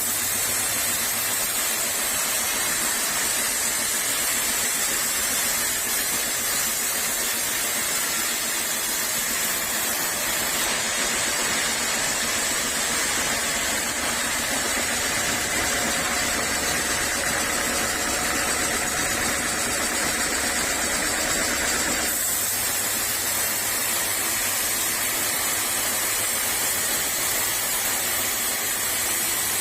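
Sawmill saw running steadily with a constant hiss, its tone shifting about eleven seconds in and again about twenty-two seconds in.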